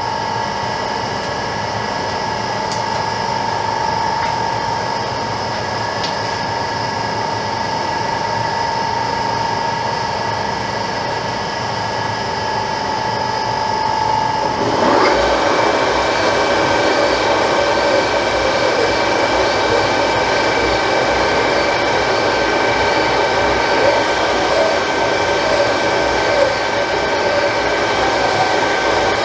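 TOS R5 lathe running with a steady gear whine while a honing tool works in the oiled bore of a 100cc kart engine cylinder. About halfway through, the whine glides up in pitch and the sound turns louder and rougher, with a grinding, scraping edge.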